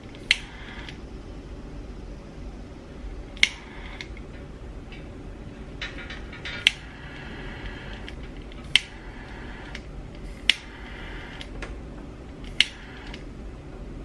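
Handheld butane torch lighter clicking six times at about two-second intervals, each click followed by a brief hiss of gas and flame, as it heat-shrinks the insulation of crimped butt connectors on the door wiring.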